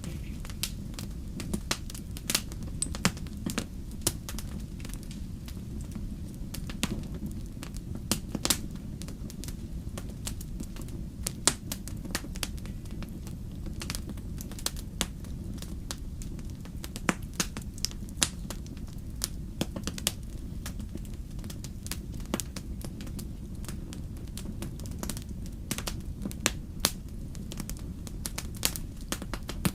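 Wood fire burning in a fireplace, crackling, with frequent irregular sharp pops and snaps over a steady low rumble of the flames.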